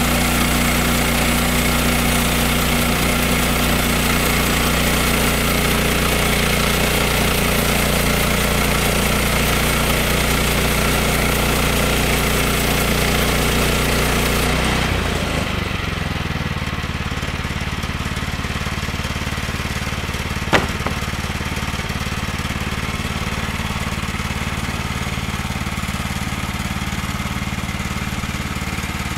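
Woodland Mills HM122 portable band sawmill running, its band blade sawing through a log with a steady high hiss over the engine. About halfway through, the sawing hiss drops away and the engine note changes to a lower, quieter running, with a single sharp click a few seconds later.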